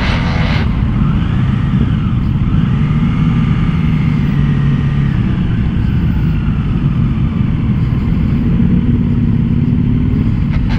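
Triumph Tiger Sport 660's three-cylinder engine running on a slow group ride among other motorcycles, heard as a steady low rumble with faint rising and falling engine whines over it.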